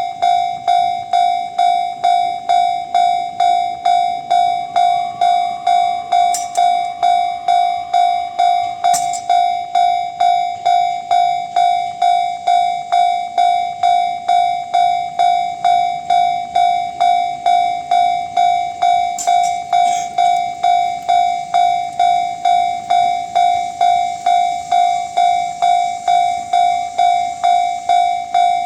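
Japanese railway level-crossing alarm, the JR standard electronic warning tone, sounding directly under its speaker: a loud ding repeated evenly just under twice a second, warning that a train is approaching. A few sharp clicks sound over it.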